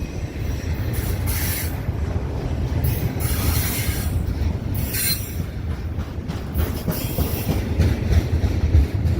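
Freight train cars rolling past with a steady low rumble, their wheels squealing in a few short high bursts about one and a half, three to four, and five seconds in.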